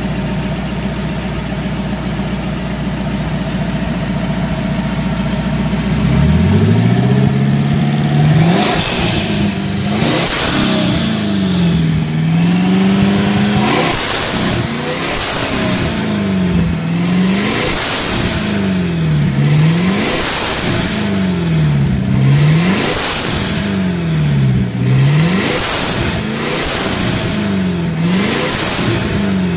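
Fuel-injected Buick Fireball straight-eight racing engine, bored and stroked to 367 cubic inches, idling steadily, then blipped repeatedly from about six seconds in, the revs rising and falling roughly every two seconds.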